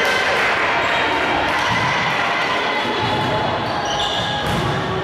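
Volleyball being played in an echoing sports hall: a sharp ball hit at the start and another near the end, over a steady din of voices and movement on court.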